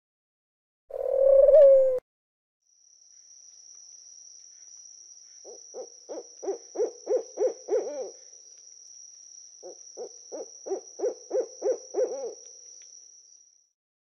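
Owl hooting: one loud hoot about a second in, then two rapid series of about nine short hoots each, roughly three to four a second. A steady high insect trill runs behind the series.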